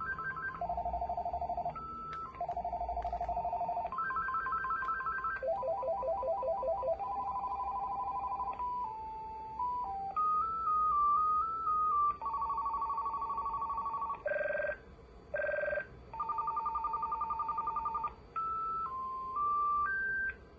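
AT&T E5640 5.8 GHz cordless phone playing through its ringer tones one after another: short electronic ring patterns, some warbling two-tone trills, some stepping beeping melodies, each lasting a second or two.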